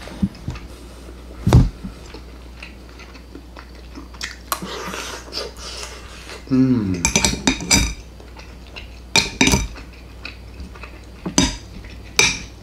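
Metal spoon and fork clinking and scraping against a ceramic plate, a series of separate sharp clinks with a stretch of scraping, as the spoon works through ground beef and its rendered fat.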